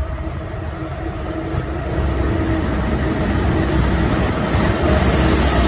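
Inside a moving car: steady low road and engine rumble with a faint steady hum, growing a little louder about two seconds in.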